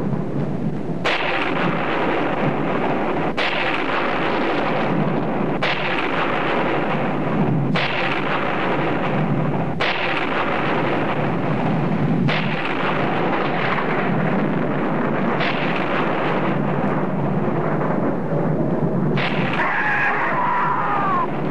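Film sound effect of an earthquake as the ground splits open: continuous heavy rumbling and crashing, with a fresh crash every two seconds or so. A wavering high wail rises over it near the end.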